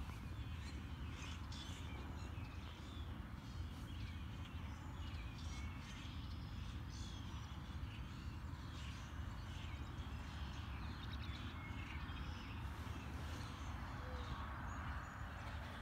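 A mix of wild birds chirping and calling in short, overlapping notes, an early spring morning chorus, over a steady low rumble.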